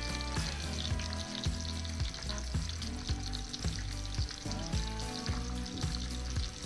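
Chopped bacon frying on a gas flat-top griddle over low heat: a steady sizzle with many small crackles and pops.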